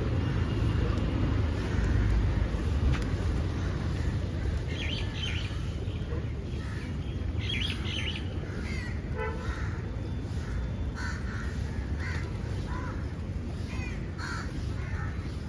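Several birds giving short chirps and calls, starting about four seconds in, over a steady low rumble.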